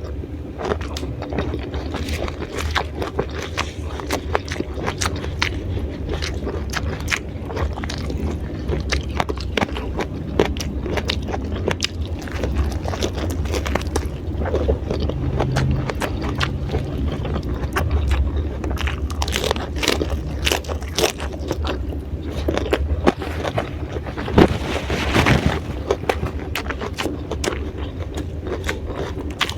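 Close-up eating sounds: crunching and chewing raw vegetables, with many short crackles and clicks, over a steady low hum.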